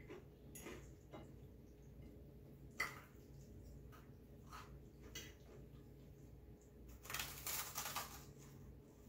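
Close-up eating sounds: soft chewing and a few light clicks of a fork and spoon against the plate, then a dense crunching from a bite of toasted garlic bread about seven seconds in.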